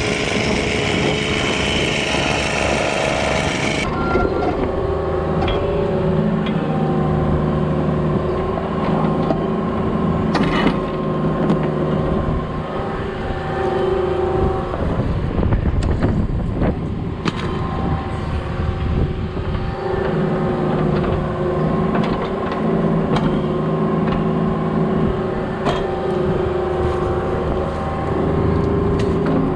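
Diesel engine of heavy work equipment running steadily, its pitch shifting as it works, with scattered knocks. The sound changes abruptly about four seconds in.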